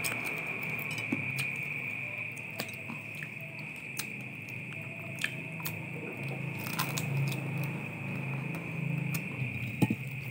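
A person chewing and biting into small pieces of roasted chicken held in the hands, with scattered small crunches and clicks. A steady high-pitched tone sits in the background throughout.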